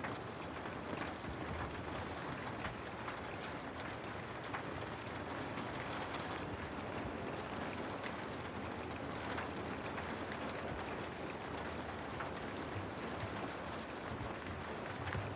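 Steady rain falling, with scattered drops ticking on a window.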